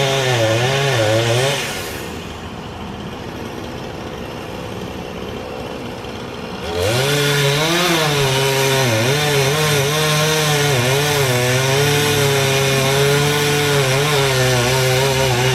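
Chainsaw running at high revs, its pitch rising and falling in cuts. It drops away about two seconds in, then revs back up about seven seconds in and holds a fairly steady high pitch.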